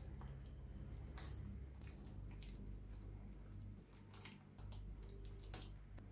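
Hands squishing raw chicken pieces through a thick tandoori-spice marinade in a glass bowl: faint, wet squelches with scattered small clicks, over a steady low hum.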